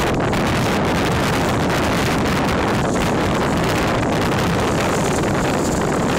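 Strong wind buffeting the microphone in gusts, over the steady rush of water streaming past a sailing yacht's hull in a rough sea.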